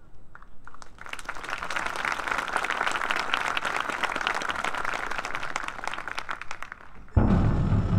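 Spectators applauding a marching band. About seven seconds in, the band comes back in loudly with low pitched notes and percussion.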